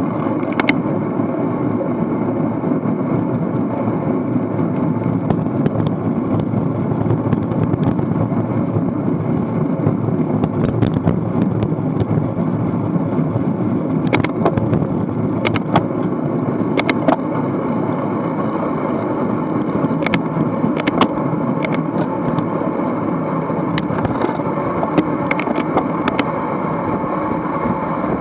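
Steady rush of wind over the microphone and road-tyre rumble from a road bike riding at speed in a bunched racing peloton, with scattered sharp clicks.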